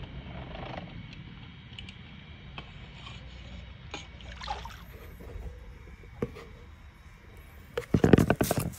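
Pool skimmer net on a pole moving through the water of a swimming pool, with faint water movement and light scraping. Near the end comes a short, loud burst of splashing as the net is lifted out and water pours through the mesh.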